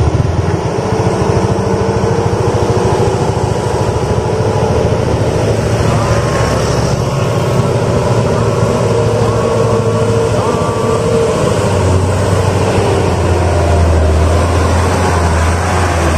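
Diesel engine of a loaded Mitsubishi Colt Diesel light truck labouring up a steep, rough dirt climb, a steady deep drone. It grows louder for the last few seconds as the truck comes close.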